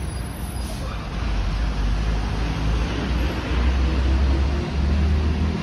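Outdoor city street noise: a steady low rumble of traffic with a hiss over it, swelling louder in the second half.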